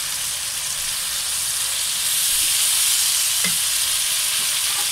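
Fenugreek leaves and tomato masala sizzling in hot mustard oil in a wok, stirred with a wooden spatula. The sizzle grows a little louder about two seconds in, and there is a light tap near the end.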